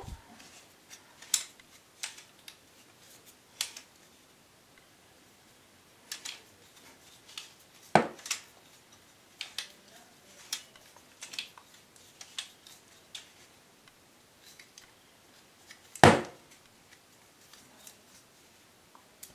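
Small hard clicks and ticks from the parts of an Action Army Striker airsoft sniper rifle's cylinder being handled and screwed together by hand, with two sharper knocks about eight and sixteen seconds in.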